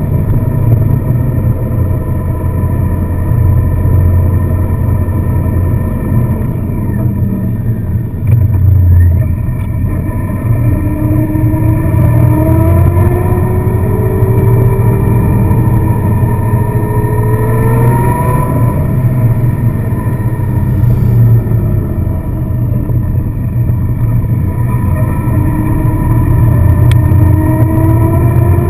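Car engine and road noise while driving. The engine note climbs steadily as the car gathers speed, drops back, then climbs again near the end.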